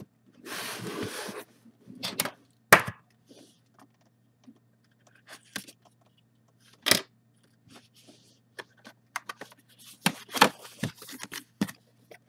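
A cardboard graphics-card box being unpacked: a papery scrape lasting about a second near the start as the outer sleeve slides off, then scattered sharp taps and knocks of cardboard being handled.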